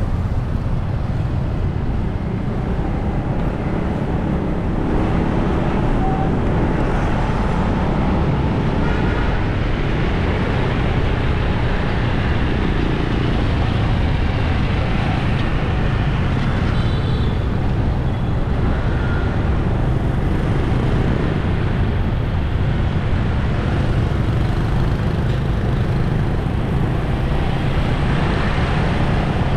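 Steady street-traffic noise heard from a moving motorbike: engine, tyre and wind noise, with scooters passing close by.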